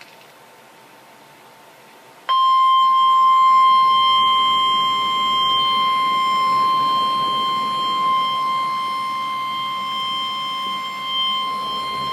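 NOAA Weather Radio warning alarm tone: a single loud, steady 1050 Hz beep that starts about two seconds in, holds for about ten seconds and cuts off near the end. It signals that a warning message follows. Faint radio hiss comes before it.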